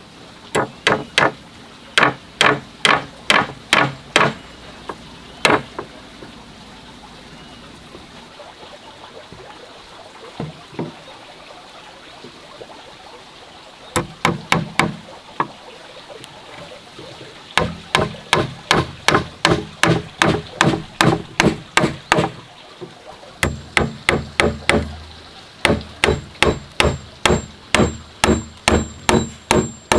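Hammer driving nails into wooden boards: runs of sharp strikes, about two to three a second, with a stretch of several seconds near the middle where only a few strikes fall.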